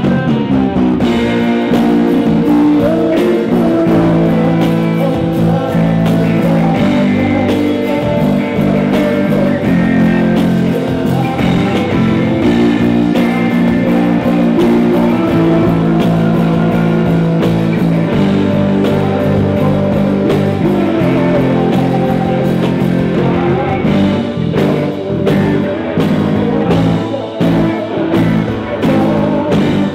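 Live rock band playing: electric guitars, bass, drums and keyboard.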